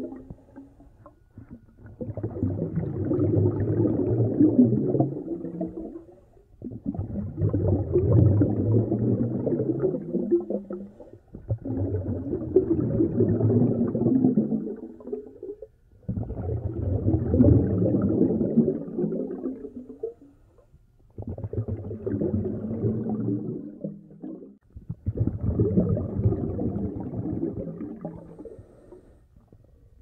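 Scuba diver breathing through a regulator underwater: about six slow breaths, each a few seconds of bubbling, with short pauses between.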